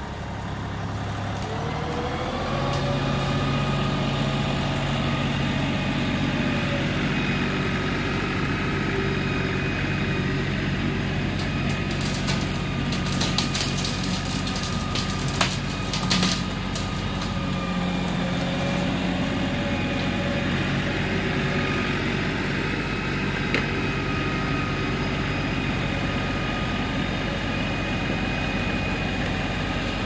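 LS XR3135 compact tractor's diesel engine running steadily under load while its front loader bucket pushes into a brush pile, with engine speed rising about two seconds in. A cluster of sharp cracks near the middle, branches snapping in the brush.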